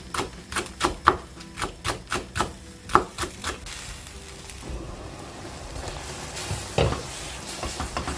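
Kitchen knife chopping a green onion on a wooden cutting board, about three or four knocks a second for the first three seconds or so. From about halfway through, taro stems sizzle in a pan while a spatula stirs them, with one louder knock near the end.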